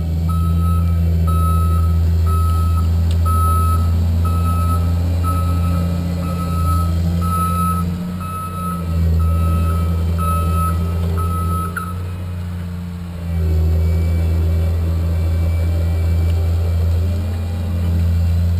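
Vehicle back-up alarm beeping at one steady pitch, about one and a half beeps a second, stopping about two-thirds of the way through. Underneath, a large engine runs steadily close by.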